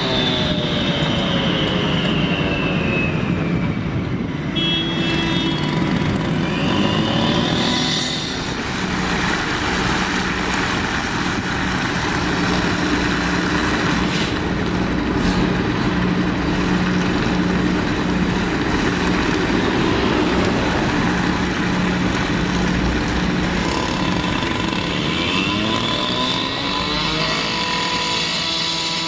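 Diesel engines of heavy road-construction machinery running. The engine pitch falls and rises over the first several seconds, settles into a steady hum, and climbs again near the end.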